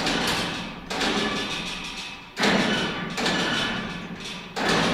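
Four heavy bangs, each ringing out for about a second in the large echoing workshop bay.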